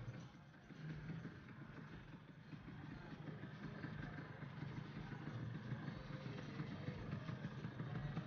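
Scooter engines idling, a steady low run that grows a little louder after the first couple of seconds.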